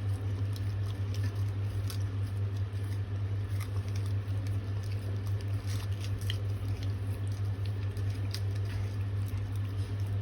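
A retriever licking and eating ice cream: many small wet clicks and smacks of tongue and mouth, irregular and unbroken. A steady low hum runs underneath.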